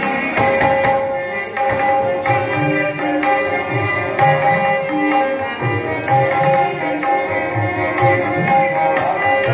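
Harmonium playing a melody in long held notes over a steady hand-drum rhythm.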